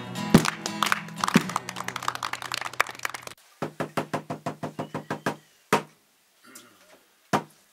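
Music with drumbeats cuts off abruptly, then a wooden barrel drum with a hide head is struck with a padded beater: a quick even run of about a dozen strokes, then two single beats about a second and a half apart.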